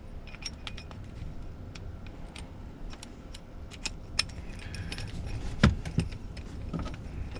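Small clinks, clicks and taps of tools and jigsaw parts being handled during reassembly, with one louder knock a little over halfway through.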